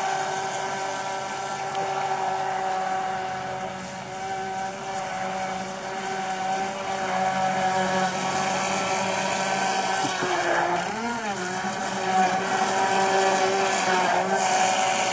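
An engine running steadily at constant speed, a continuous droning hum.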